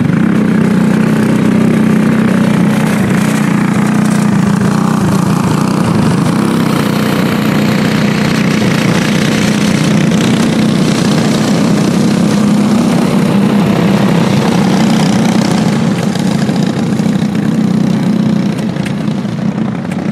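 Racing karts' small engines running flat out together as the pack laps the oval, a steady loud buzz with no let-up.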